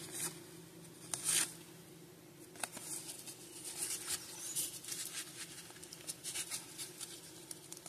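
Baseball cards being slid and flipped over one another by hand: soft scratchy card-on-card rustles, one louder swipe a little over a second in, then a run of quick light scrapes through the second half.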